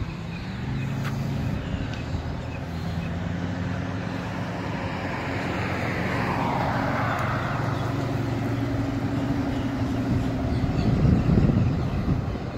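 A car's engine and exhaust running with a steady low note, with tyre hiss swelling and fading around the middle; it grows loudest about eleven seconds in as a car passes, then drops away.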